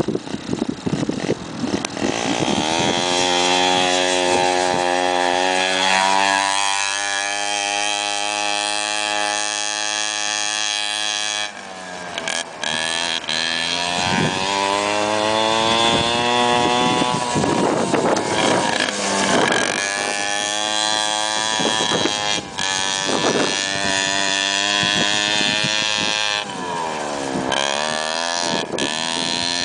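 Small 50cc mini ATV engine running and revving, its pitch repeatedly climbing and falling as the throttle is opened and closed, with a few sharp drops in pitch.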